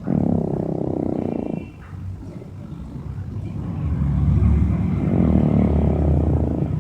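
Dog snoring: a rasping snore for about the first second and a half, then a lower, rumbling snore building from about four seconds in.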